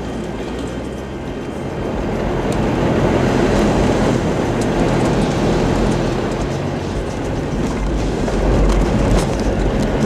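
In-cabin noise of a 4x4 driving along a rough dirt track: a steady low rumble of engine and tyres, with a few sharp knocks and rattles.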